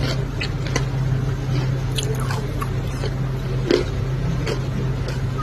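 Someone biting and chewing dry multani mitti (Fuller's earth) clay, with irregular sharp crunches every half second to a second. A steady low hum runs underneath.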